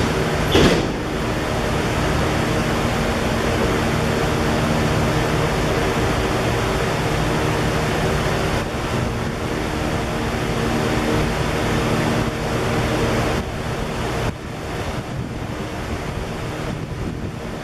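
Diesel locomotive at the head of a double-stack container train, its engine running with a steady low drone under rumbling noise as the train rolls slowly closer. A brief loud noise a little over half a second in, and the sound drops somewhat about 14 seconds in.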